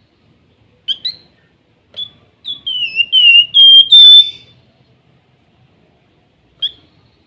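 Flamboyan (wergan jawa, Javan fulvetta) singing: a couple of short chirps, then a run of clear, high whistled notes, some dipping and some level, loudest about four seconds in, and one more short chirp near the end.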